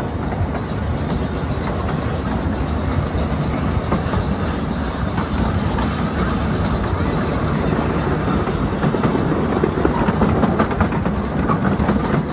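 Ride-on miniature railway train rolling along the track, heard from aboard a riding car: a steady rumble of the wheels with light clicking over the rail joints, a little louder in the second half.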